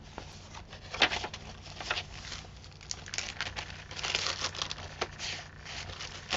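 Irregular crinkling and rustling of paper as a handmade journal is handled and its pages moved, with a few sharp taps, the loudest about a second in.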